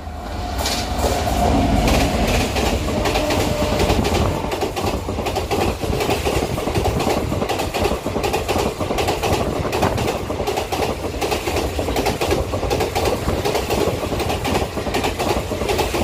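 Express passenger train running through a station at speed behind an electric locomotive. The coaches pass close by, a loud steady rush with a rapid clatter of wheels over the rails.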